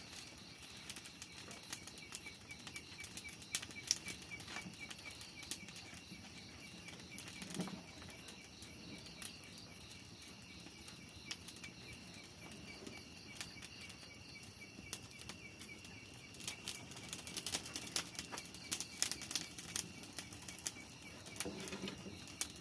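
Scattered rustling and flapping, thicker for a few seconds near the end, over a steady chorus of high, rapidly pulsing insect chirps.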